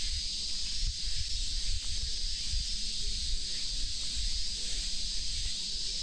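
A dense chorus of summer cicadas: a steady, high sizzling hiss, over a low, uneven rumble.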